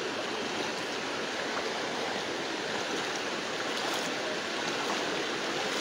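Muddy floodwater from a breached river embankment rushing steadily across a road, a constant even rush of water.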